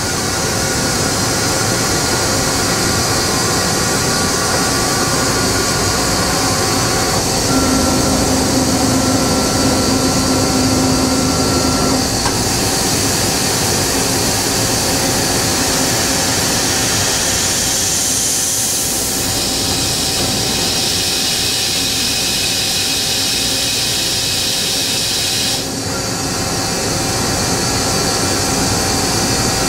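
Agie Agietron Advance CNC die-sinking EDM machine running dry, without dielectric fluid, as its ram and electrode changer move to pick up a tool: a steady machine hum and hiss with thin whining tones. A stronger whine comes in about seven seconds in and stops some five seconds later, and the hiss shifts a few more times as the axes move.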